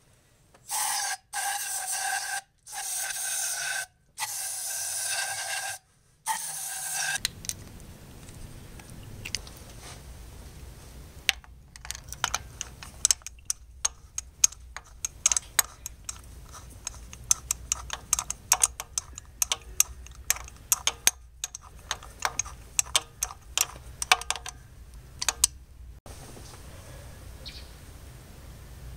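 An aerosol can of throttle body and air-intake cleaner sprayed through its straw in about five short hissing bursts. Later comes a long run of sharp, irregular metallic clicks from a socket and ratchet worked in a spark plug well.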